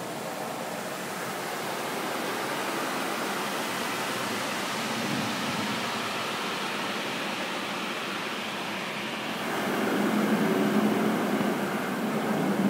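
Automatic car wash spraying water over a car, heard from inside the cabin as a steady rushing noise. About nine and a half seconds in it grows louder and deeper.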